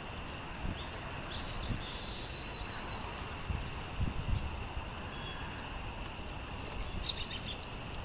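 Small songbirds chirping: short, high chirps scattered through, coming thickest about six to seven seconds in, over a faint steady high hum.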